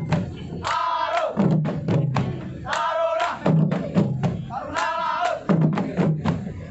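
Rampak gendang ensemble drumming on kendang: rows of drums struck together, broken by a loud group shout about every two seconds, three times.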